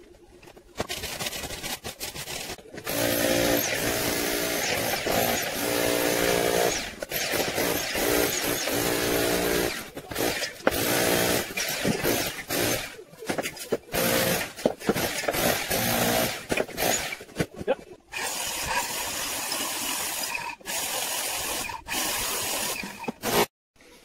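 Handheld power tool cutting out brickwork and render from a house wall, running in repeated short stop-start bursts with a buzzing drive note.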